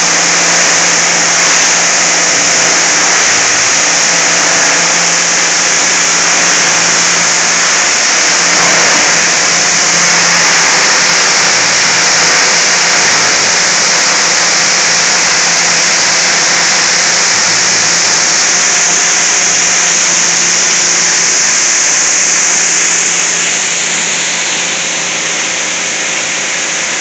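Plastic crusher running and grinding TV shells into flakes: a loud, steady rushing noise with a low hum underneath, a little quieter near the end.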